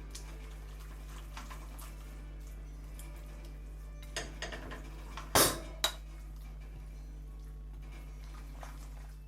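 Metal utensils clinking against dishes: a few light clinks about four seconds in, then two sharp knocks a little after five seconds, the first the loudest, over a steady low hum.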